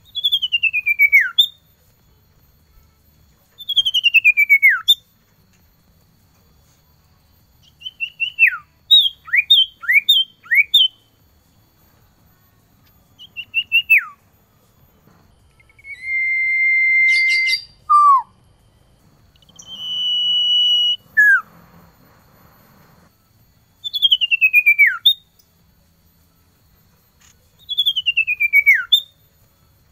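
Male common iora singing: long whistled notes that slide down over about a second with a fine trill, repeated every few seconds. Around the middle comes a quick run of shorter falling notes, then two held steady whistles.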